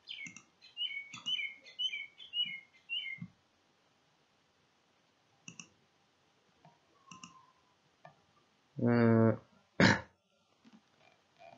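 Scattered computer keyboard and mouse clicks, with a quick run of about ten short high chirps over the first three seconds. About nine seconds in, a man's voice makes a brief sound, the loudest thing here.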